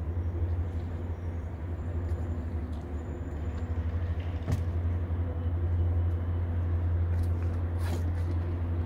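Steady low rumble of outdoor background noise, with a couple of faint clicks about four and a half and eight seconds in.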